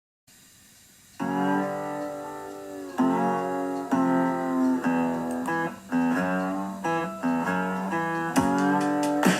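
Guitar music, starting about a second in, with a new chord struck and left ringing roughly once a second.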